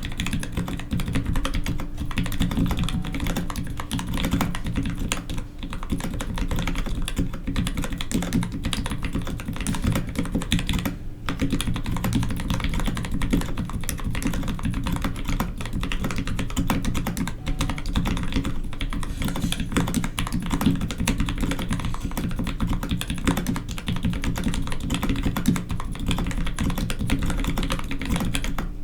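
Fast, continuous typing on a custom Space 65 mechanical keyboard with Gateron FEI switches and GMK Jamon keycaps: dense, deep keystroke clacks, with a brief pause about eleven seconds in.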